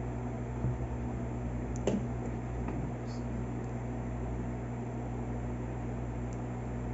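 A steady low machine hum with an even hiss behind it, and a few faint light clicks about a second and two seconds in.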